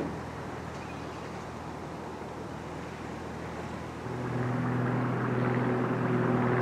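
Steady rumble of trains. From about four seconds in it grows louder with the even, steady hum of a Class 170 Turbostar diesel multiple unit's engines as the train approaches.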